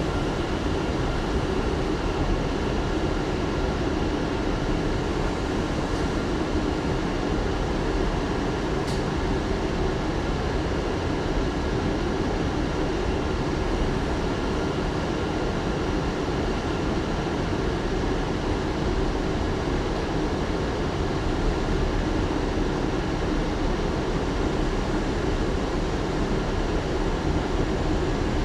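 R179 subway train running steadily between stations, heard from inside the car: an even rumble of wheels on rail with faint steady tones from its Bombardier MITRAC AC propulsion. Two faint clicks sound in the first third.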